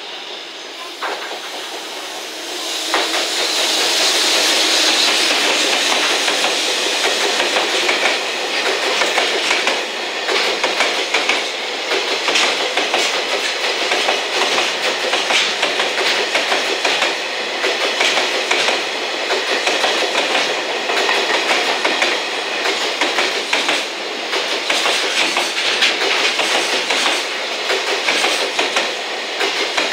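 Container freight train hauled by an EF210 electric locomotive passing close by on the main line, getting suddenly louder about three seconds in as the locomotive goes past. Then a steady run of container wagons rolling by, with the clickety-clack of wheels over rail joints.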